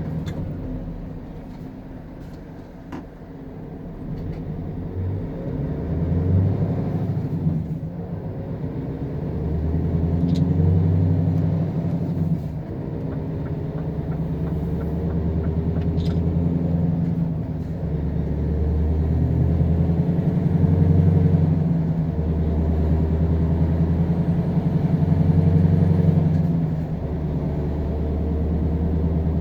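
Scania R520 Next Gen's 16-litre V8 diesel pulling a heavy load, its pitch and loudness climbing and then dropping back several times as it works up through the gears.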